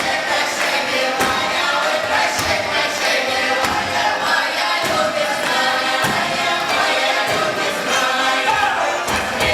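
A choir singing, with a steady low thump about once a second marking a beat.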